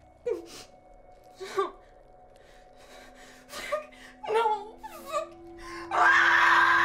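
A woman's frightened gasps and whimpering sobs in short broken bursts, then a loud, sustained scream starting about six seconds in. A low steady music drone sits underneath.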